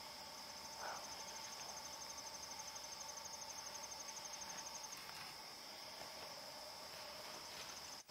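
Night chorus of crickets and other insects: a steady high chirring, with a faster pulsing trill over it that stops about five seconds in, and a lower, steadier drone beneath. A short, faint sound breaks in once about a second in.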